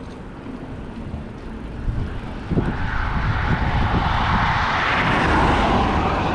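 Strong wind buffeting the microphone during a bicycle ride, with a loud rushing roar that swells in about two and a half seconds in and holds.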